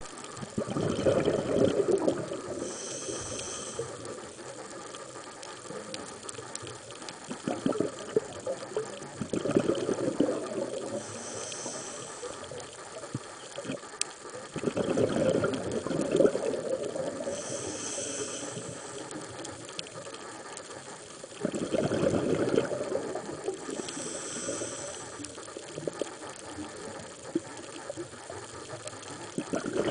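Scuba diver breathing through a regulator underwater: a burst of exhaled bubbles about every six to seven seconds, each followed by the short, high hiss of the next inhalation through the regulator.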